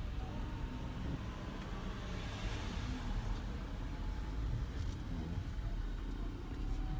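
A car moving slowly, heard from inside the cabin: a steady low engine and road rumble, with a swell of tyre hiss about two to three seconds in.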